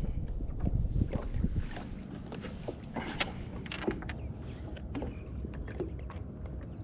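Small fishing boat sounds: scattered light knocks and clicks over a steady low rumble of wind on the microphone.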